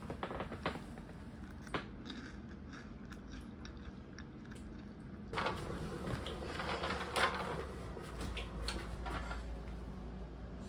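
A few sharp crinkles and clicks, with chips being eaten from an open snack bag. About five seconds in, louder rustling of cloth starts, with light wooden knocks, as towels and bedding are smoothed in a wooden bassinet.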